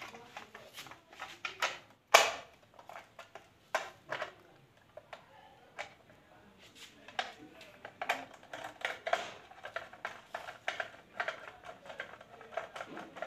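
Irregular clicks and knocks of hands working a plastic wall-mounted fan regulator as it is screwed in place, with one sharper knock about two seconds in.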